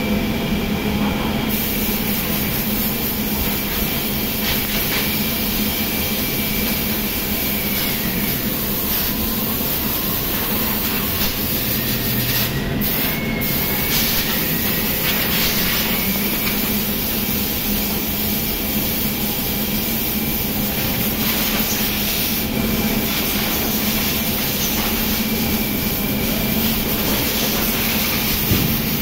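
Steady loud mechanical din of circular knitting machines running on a knitting mill floor, an even hum with a hiss over it.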